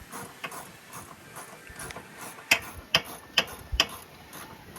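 Hand tools being worked on a car: a series of sharp metallic clicks, faint at first, then four loud ones about half a second apart after the middle.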